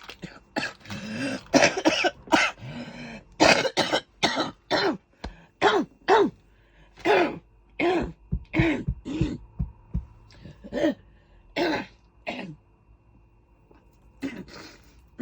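A woman's coughing fit: a long run of hoarse, chesty coughs in quick succession that thins out near the end, from a cough she is taking antibiotics for.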